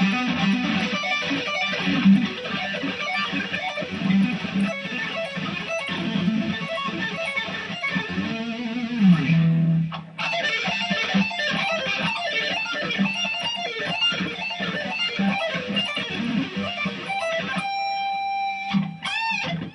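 Electric guitar (a custom Ibanez Fireman) played through its DiMarzio PAF Pro neck pickup: a continuous run of fast notes, a short break about ten seconds in, then more playing ending on a held note and a brief wavering squeal.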